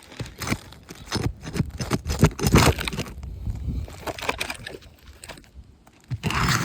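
Asphalt shingle being pried loose from its sealant strip, with irregular crackling and scraping as the bond tears, loudest in the first half and again near the end. The shingles are well stuck, tearing their fiberglass mat as they lift.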